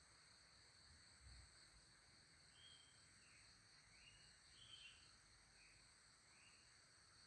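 Faint outdoor ambience: a steady high insect drone, with several short bird-like chirps in the middle.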